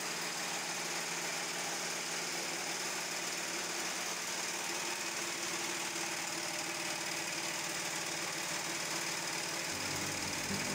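Coffee grading machine running: its vibrating perforated metal sieve deck shakes and green coffee beans rattle steadily across the screen and down the outlet chute.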